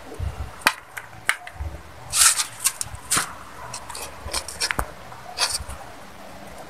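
A metal spoon clinking and scraping against an aluminium pot, with short splashes and drips of water as boiled glutinous rice balls are scooped out. There are sharp clicks about a second in and near five seconds, and brief splashy bursts in between.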